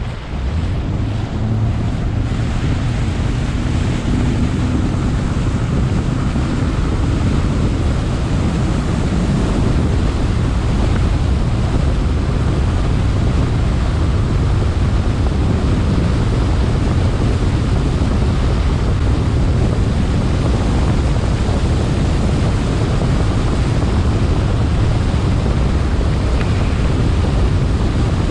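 Wind buffeting the microphone and water rushing past the hull as a Triton TRX 179 bass boat runs fast across choppy water, with its outboard motor running underneath. The noise builds over the first few seconds, then holds steady.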